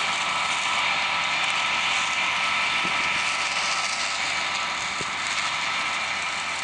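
Combine harvester running as it harvests soybeans: a steady mechanical noise with a few whining tones held throughout.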